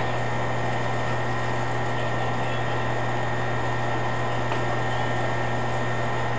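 Audichron STM-100M-T time-and-temperature announcing machine running between announcements: a steady motor hum with a low drone and a faint high whine.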